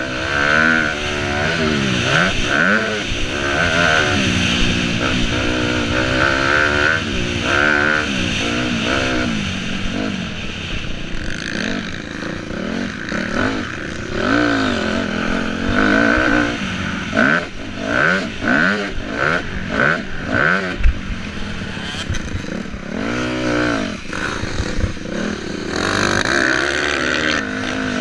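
Motocross dirt bike engine heard from on the bike, revving up and down again and again as the throttle is opened and closed, its pitch climbing and dropping every second or two.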